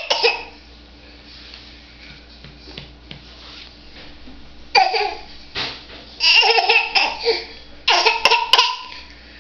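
Playful, high-pitched laughter-like vocalizing in several short bursts, beginning about five seconds in after a quiet stretch. A short sharp burst at the very start trails off a cough that comes just before.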